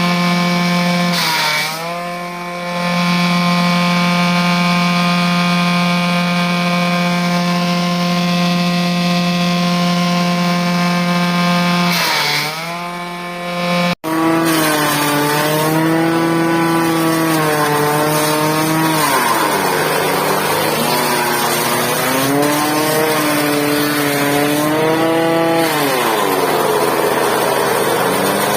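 Engine-driven chaff cutter running, a steady drone at high speed. Its pitch sags and recovers twice in the first half, then after about halfway it rises and falls unevenly, typical of the machine's speed changing under load.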